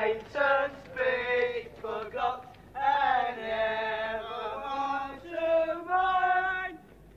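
Voices singing or chanting, with held notes that move in pitch and break off between phrases.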